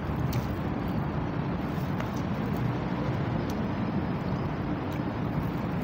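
Steady outdoor background noise, a low rumble with hiss over it, with a few faint clicks and crinkles of a plastic glove and styrofoam food box being handled.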